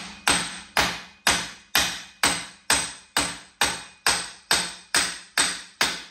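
Steady hammer blows on a steel nut threaded onto the end of a rear drive axle, about two a second, each with a short metallic ring. The axle shaft is being driven out of the wheel hub bearing where it is stuck.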